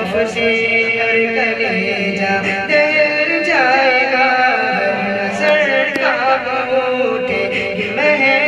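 A man singing an Urdu naat into a microphone, drawing out long held notes with wavering ornaments between lines of the verse.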